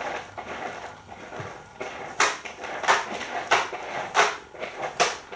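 Short scratchy rustles, five in the second half, as kittens scramble on a terry towel under a stroking hand.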